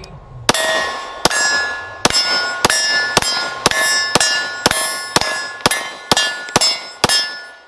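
About thirteen 9mm pistol shots from a Glock P80 (Gen 1 Glock 17 pattern), fired at an even pace of about two a second. After each shot a steel target rings on until the next shot, and the ringing dies away near the end.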